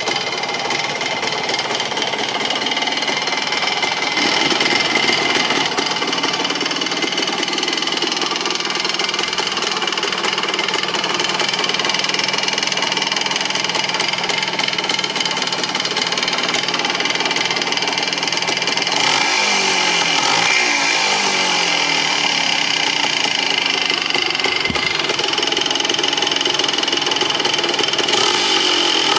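The air-cooled single-cylinder two-stroke engine of a 1975 Bultaco Sherpa T 350, running steadily just after a cold start. Its engine speed wavers briefly about two-thirds of the way through.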